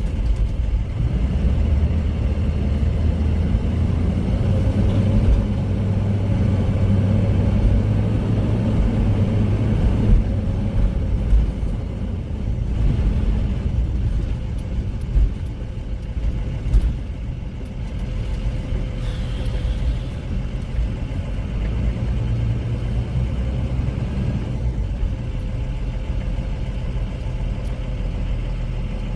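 Engine and road noise of the converted ambulance camper driving on the road: a steady low rumble whose engine note shifts a few times.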